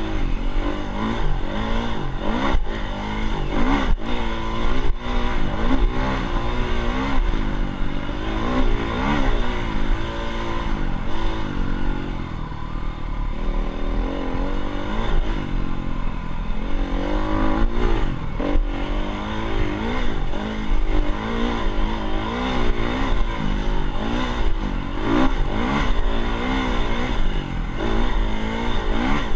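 Dirt bike engine revving up and down over and over as it is ridden, its pitch rising and falling every second or two.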